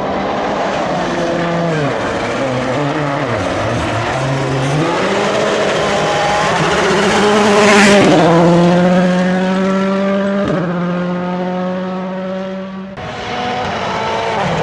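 Volkswagen Polo R WRC rally car's turbocharged 1.6-litre four-cylinder engine driven hard: the pitch falls and climbs as the throttle comes off and on. It is loudest about eight seconds in as the car passes, then holds high revs with a brief dip around ten and a half seconds in, likely a gear change, before the sound changes suddenly near the end.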